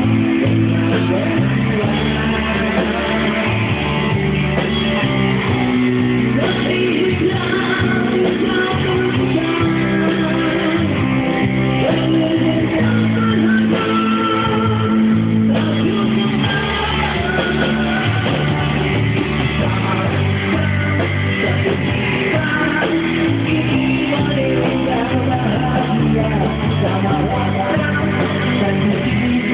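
A live band playing a song, with amplified singing over guitar and a steady bass line.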